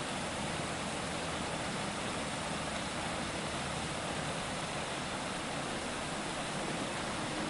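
Waterfall running: a steady rush of water cascading down stepped rock ledges.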